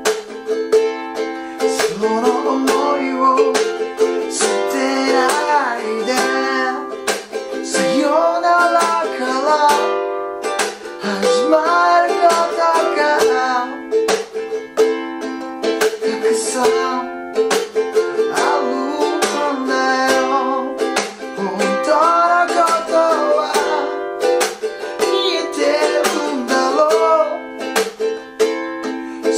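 Ukulele strummed in a steady rhythm through an Am–F–G7 chord progression, with a man singing the melody over it in phrases.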